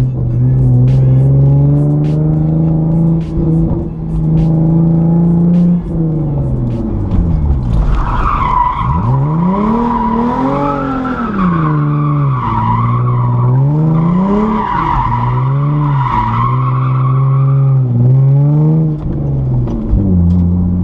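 Hyundai Genesis Coupe's engine revving up and down during a drift, with the rear tyres squealing from about eight seconds in for roughly ten seconds as the car slides.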